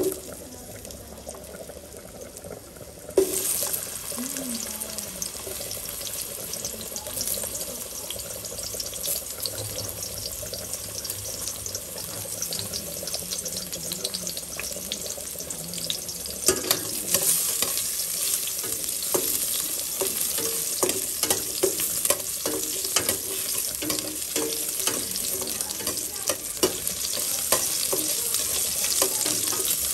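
Native ginger and red onion sizzling in a little oil in a stainless steel pot. The sizzle starts suddenly about three seconds in. From about halfway on, a metal spatula scrapes and clicks against the pot as they are stirred.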